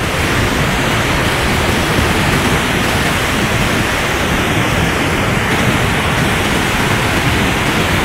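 Flash-flood river torrent: a fast, swollen flow of muddy water rushing loudly and steadily.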